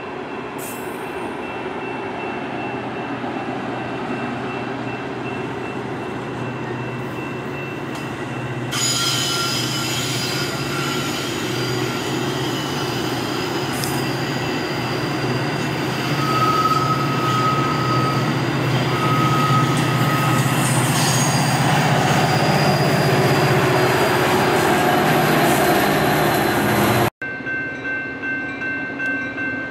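Metra commuter train of bilevel gallery cars rolling past at a grade crossing, the cars and wheels rumbling steadily, growing louder and brighter about nine seconds in. Near the end it cuts to a crossing signal's bell ringing in an even rhythm.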